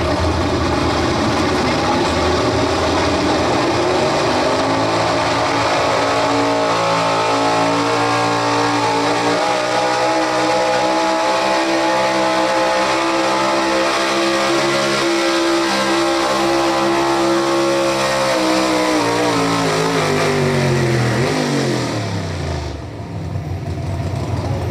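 Chevrolet pickup's engine under full throttle during a truck pull. It climbs in pitch over the first few seconds, holds at high revs, then winds down about twenty seconds in as the pull ends.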